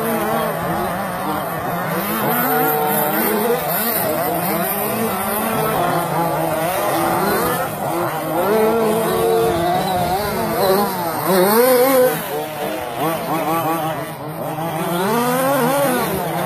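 Several radio-controlled off-road racing trucks running together, their small engines revving up and down in many overlapping rising and falling tones.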